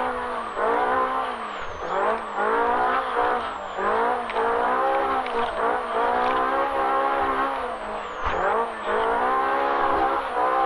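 Polaris RZR Pro R's four-cylinder engine running hard, its pitch dropping and climbing again every second or two as the throttle is lifted and reapplied over rough ground, with a few sharp knocks.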